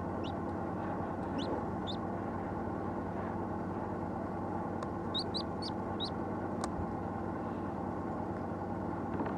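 Hatching chick peeping from inside its cracked egg: short high peeps, a few singly in the first two seconds and then four in quick succession about five seconds in, over a steady low hum. One sharp click about two-thirds of the way through.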